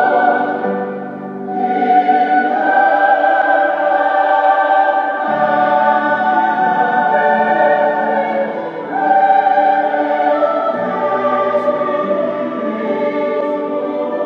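A choir singing slow music in long held chords, with brief breaks between phrases about a second in and again near nine seconds.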